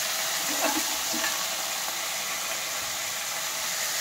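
Raw green peas and dal sizzling steadily in hot oil in a nonstick kadai over a medium flame, with a few light scrapes of a steel spoon stirring them in the first second or so.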